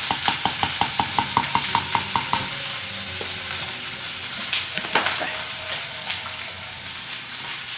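Wooden spoon stirring and beating mashed potatoes in a bowl: a quick run of taps, about six a second, for the first two seconds or so, then a few scattered knocks. Under it runs a steady sizzling hiss of hot food cooking.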